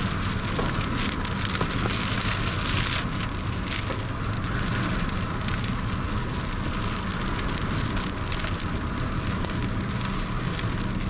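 Rain hitting a vehicle as heard from inside the cabin: a steady hiss dotted with the ticks of individual drops, over a low, even hum from the vehicle.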